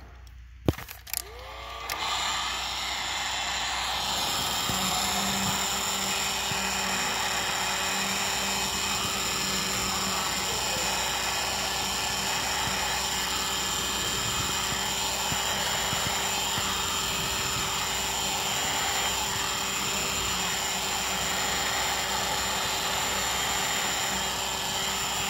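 Heat gun switched on with a click, its fan motor winding up to speed, then running steadily with a rushing of hot air.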